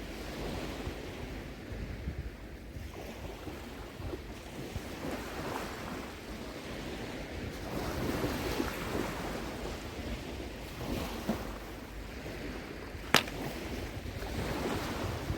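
Small waves washing on the shore, with wind rumbling on the microphone, and one sharp click near the end.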